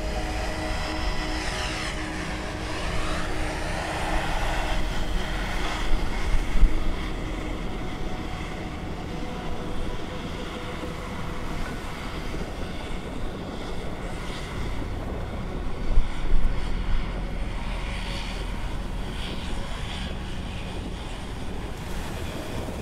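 Boeing 777-300ER's twin GE90 turbofan engines at takeoff thrust during departure, a steady jet roar with a whine that sweeps in pitch over the first few seconds. Wind buffets the microphone twice.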